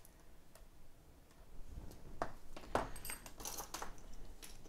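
A handful of small, sharp clicks and light metallic clinks, bunched about two to four seconds in with one more near the end: hand tools and the phone's parts being handled as an iPhone 7 is opened on a repair bench.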